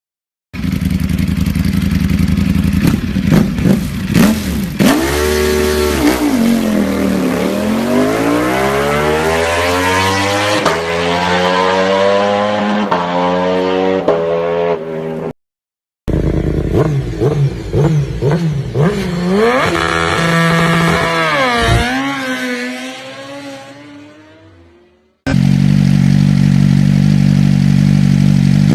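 Motorcycle engines in a run of short clips separated by abrupt cuts: first an engine revving, its pitch sliding down and then climbing again; then another that fades away; then one running at a steady note near the end.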